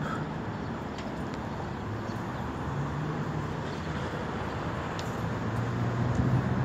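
Road traffic: a steady wash of passing cars with a low engine hum that grows louder near the end as a vehicle comes closer, and a few light clicks.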